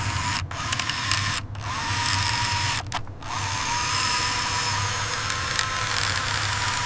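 A small electric motor whirring with a thin steady whine over hiss, broken by a few brief cut-outs.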